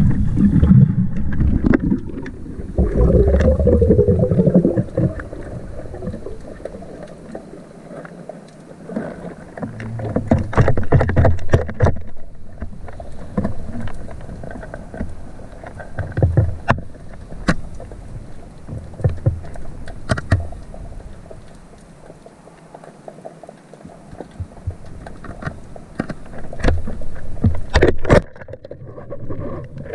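Sea water sloshing and splashing around a diver's camera, with scattered clicks and knocks, louder in a few stretches near the start and about ten seconds in.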